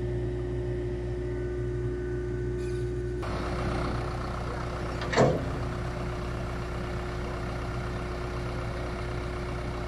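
Deutz-Fahr tractor's diesel engine running steadily, with a rougher noise joining in about three seconds in. A single short, loud sound stands out about five seconds in.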